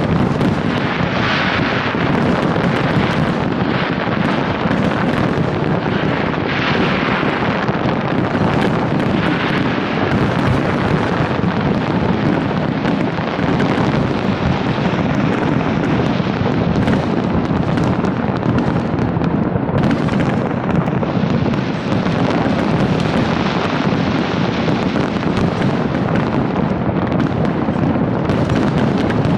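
Large fireworks display in a continuous barrage, countless detonations running together into a steady, dense rumble of bangs and crackle.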